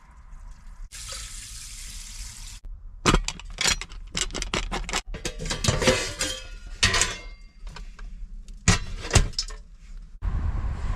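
A short pour or rush of water, then a run of metal and glass kitchenware clinking and clattering as pots, lids and utensils are handled.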